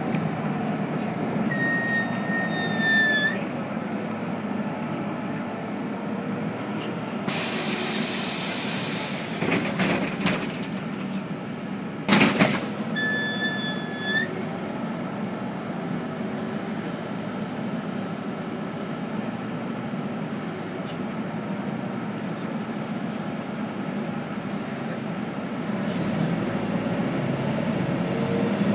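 City bus stopped at a stop with its engine running: a two-second electronic warning beep, then a hiss of compressed air lasting about three seconds, a knock, and a second two-second beep. The engine noise rises near the end as the bus pulls away.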